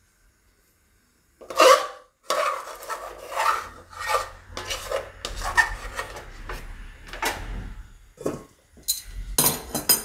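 Steel spoon scraping cooked wheat-flour dough (khichu) out of a pot and onto a steel steamer plate: a run of scrapes and light metal-on-metal knocks, starting about a second and a half in.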